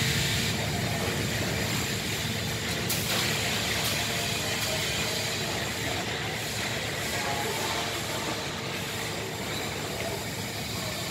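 Steady machinery hum and hiss with a faint steady whine, the running background noise of a heavy industrial hall.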